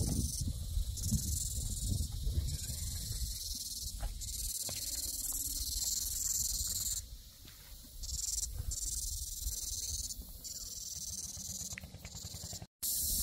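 Jungle cicadas in a dense, high, steady hiss that dips out briefly several times, over a low rumble.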